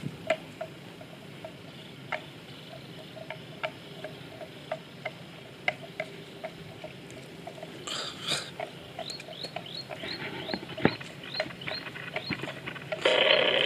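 Water buffalo grazing up close: irregular crisp clicks and snaps of grass being torn and chewed. Short rising chirps repeat about three times a second from about nine seconds in, and a brief louder noise comes near the end.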